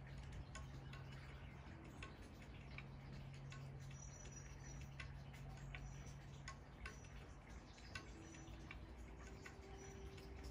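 Quiet outdoor ambience: faint, irregular ticking clicks over a low steady hum.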